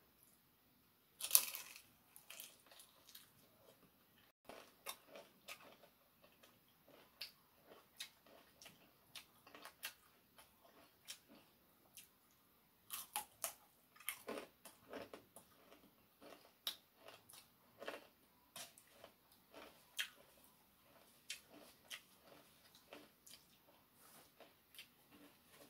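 Eating crispy fried chicken by hand: many short, irregular crunches, bites and chewing sounds as the skin and meat are torn and bitten, with a sharp crunch about a second in.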